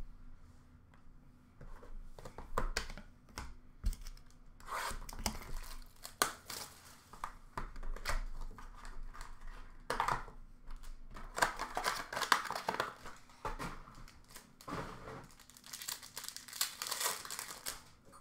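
Foil trading-card pack wrappers being torn open and crinkled: several bursts of ripping and crumpling wrapper.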